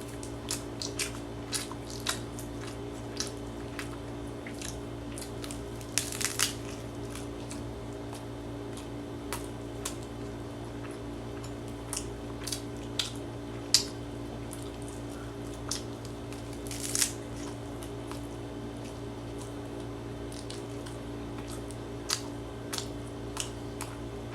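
Close-up eating sounds: scattered wet mouth clicks and smacks from someone chewing a rice ball, with two short rustles about 6 and 17 seconds in, over a steady low hum.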